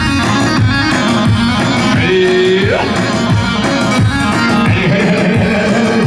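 Loud dance music with a steady drum beat under a melody; about two seconds in, one held note bends sharply upward.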